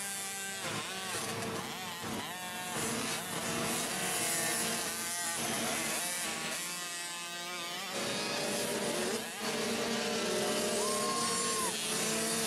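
Several small two-stroke youth motocross bikes racing past, their engines revving up and dropping off over and over with throttle changes and gear shifts, several pitches overlapping.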